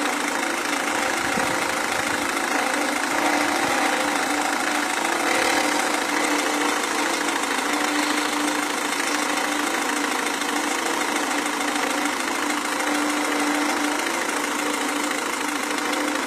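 Renault Scénic II 1.5 dCi four-cylinder turbodiesel engine running steadily at idle, with an engine noise that the title puts down to the injection.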